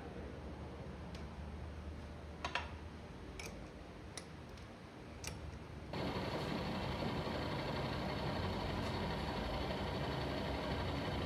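Steady mechanical running noise with a few sharp clicks, jumping suddenly louder about six seconds in.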